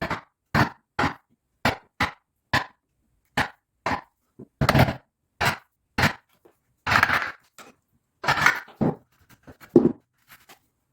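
Hammer blows on a wood chisel, cutting the recess for a door latch keep into a wooden door frame. There are about a dozen sharp strikes, roughly two a second, broken by three or four longer, rougher cuts.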